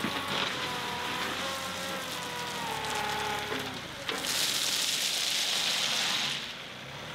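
Compact diesel tractor working its front loader under load, with a whine that falls in pitch over the first few seconds. About four seconds in, a bucketful of gravel pours out of the raised loader bucket in a loud rushing spill lasting about two seconds.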